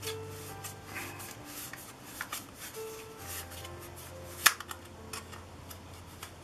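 Plastic petal lens hoods clicking and rattling as they are handled, with one sharp knock about four and a half seconds in, over background music.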